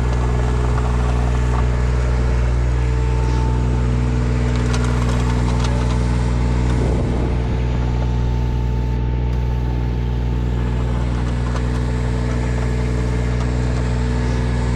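Engine of a crack-sealing rig running steadily at an even speed, with a slight drop in level about seven seconds in.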